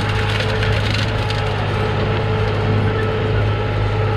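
John Deere 5065E tractor's diesel engine running steadily under load while its disc plough cuts through dry, hard soil, with the crunching and crackling of clods breaking over the discs, strongest in the first second or so.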